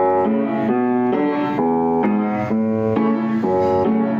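Instrumental theme music: a keyboard plays a melody of sustained notes and chords that change in a steady rhythm, about two a second.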